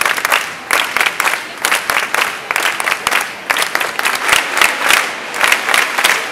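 A large crowd applauding, with close single hand claps standing out sharply over the dense clapping of many people.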